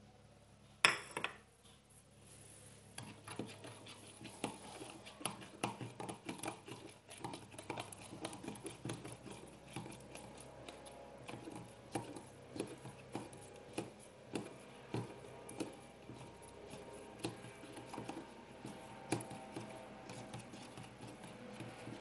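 Metal spoon stirring instant yeast into warm water in a small measuring jug, clinking and scraping against the jug in quick, irregular clicks. A single sharper knock with a brief ring comes about a second in.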